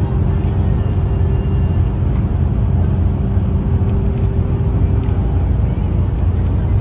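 Steady rumble of a vehicle driving along a road, heard from inside the cabin: engine and tyre noise with a constant hum.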